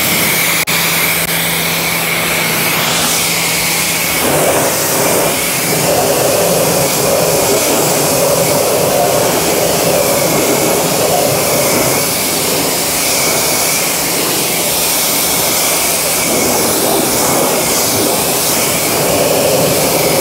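Pressure washer running, its water jet spraying onto a vehicle's wheel and body panels to rinse off dirt. A steady whine sits under the loud hiss of the spray. About four seconds in, a low hum drops out and the spray changes tone, as if the jet has moved to another surface.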